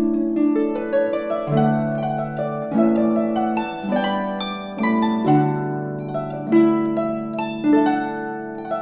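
Background music of plucked harp notes, each note ringing out and fading before the next, in a slow melody.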